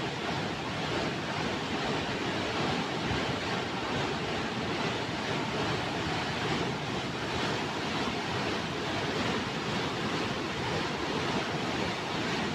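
A flooded, muddy river rushing past: a steady, dense rushing and churning of fast floodwater, the river in spate after heavy rain.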